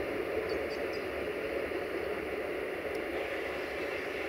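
Empty freight wagons rolling away along the track: a steady rumble of wheels on rails, fading slightly.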